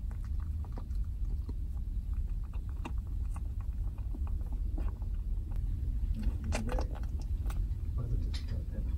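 Raccoons in a window well: scattered soft clicks and smacking sounds, with a brief low churring call about six seconds in, over a steady low rumble.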